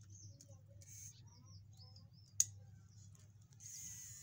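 A single sharp click about two and a half seconds in, then near the end the small battery-powered DC motor of a homemade toy car starts up with a steady high whine.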